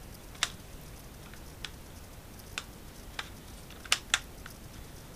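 Short sharp plastic clicks and snaps from a Seagate Central network drive's case as it is gripped and worked along its edge. There are about six, spread over a few seconds, and the two loudest come close together about four seconds in.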